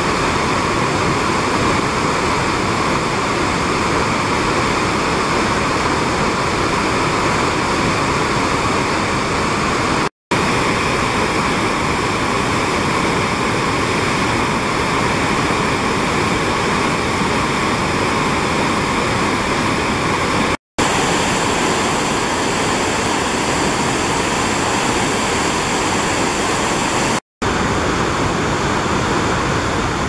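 Steady rush of a large waterfall, the Middle Falls of the Genesee River, with no tones or voices. The sound cuts briefly to silence three times.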